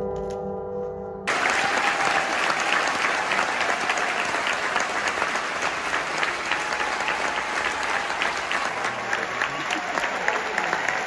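Music holding a sustained chord cuts off just over a second in, and a theatre audience breaks into applause that carries on steadily.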